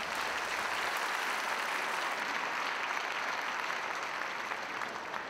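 Theatre audience applauding steadily, beginning to die down near the end.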